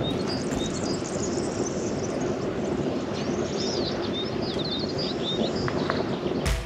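Outdoor ambience: small birds chirping in quick high twitters over a steady rushing noise.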